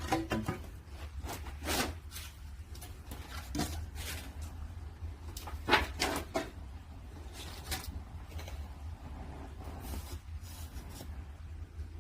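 Firewood being fed into a traditional wood-fired kiln's chamber: irregular sharp cracks and knocks of logs over a steady low rumble, loudest in a quick run of knocks about six seconds in.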